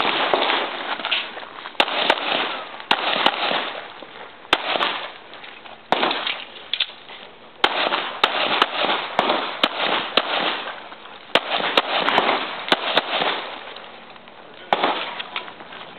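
Semi-automatic pistol firing a string of shots, some in quick succession and some with pauses of a second or more between them, each bang followed by a short echoing decay.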